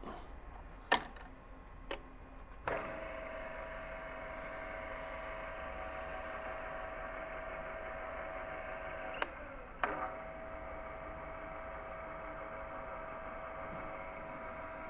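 Gear-driven column drilling machine tapping a thread in an aluminium block. A few clicks come first, then about three seconds in the motor and gearbox start with a steady hum and whine. Near ten seconds two clicks and a brief dip mark the hand-reversing switch being flipped, and the spindle runs on in reverse to back the tap out.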